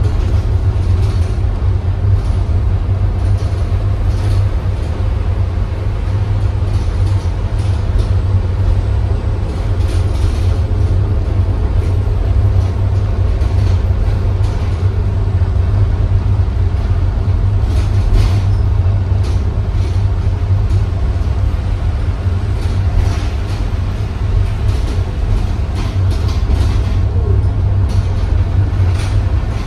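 Inside a transit bus on the move: the steady low drone of the engine and drivetrain under road noise, with short rattles from the body and fittings here and there.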